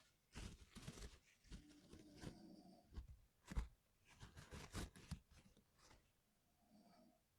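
Scattered small clicks, scrapes and rustles of hands working on a mechanical keyboard's parts, with one sharper click about halfway through.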